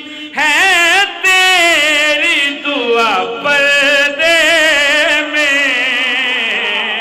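A man singing into a microphone, holding long, drawn-out melismatic notes with a strong wavering vibrato, in the chanted style of a Shia zakir reciting a devotional nazm.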